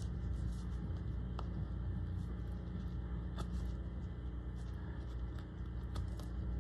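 Faint scattered ticks and scrapes of a V-tool cutting page-line grooves into a small wooden block, over a steady low hum.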